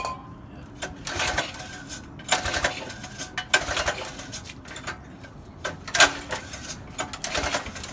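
A mini bike engine's recoil pull starter yanked five times in quick succession, each pull a short rasping whirr of cord and turning engine that does not catch.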